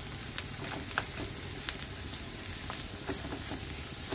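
Diced onion, sweet corn and carrot sizzling in hot oil in a nonstick frying pan while being stirred with a spatula: a steady sizzle with a few sharp clicks and scrapes of the spatula against the pan.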